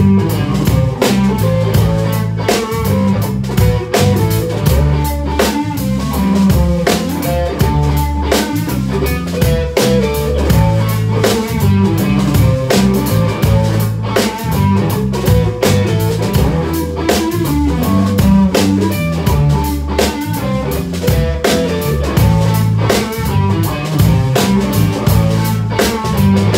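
A live rock band plays with drum kit and electric guitar, the drums close and prominent. A steady beat runs under moving bass notes.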